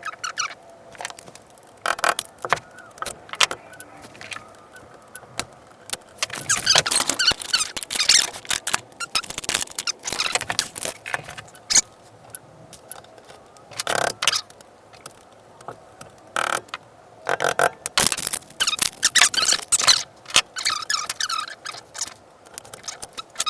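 Hand tools clinking, scraping and squeaking against the metal parts of a Yamaha Blaster ATV, in irregular knocks and short scrapes, while the stuck drive chain is worked at.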